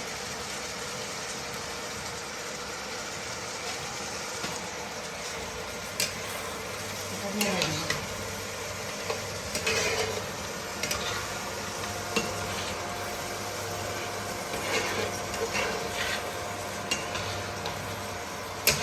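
Goat-head mutton curry simmering in a frying pan with a steady sizzle, while a spoon stirs it and scrapes and knocks against the pan, in scattered clicks and scrapes from about six seconds in.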